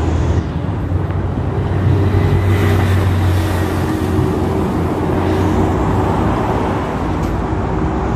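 Steady car engine hum and road noise with a rush of wind, loud throughout.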